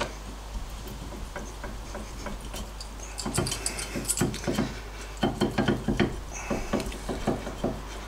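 Metal clinks, knocks and scraping as a worn front brake pad is worked loose and slid out of an MGB's disc brake caliper. It is quiet at first, then comes a run of short rattling knocks through the second half.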